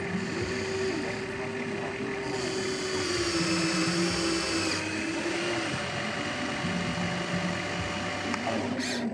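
Small electric motors of a remote-controlled model excavator whining as it works. The pitch dips and shifts, a higher whine joins for a couple of seconds, and the main tone stops a little past halfway.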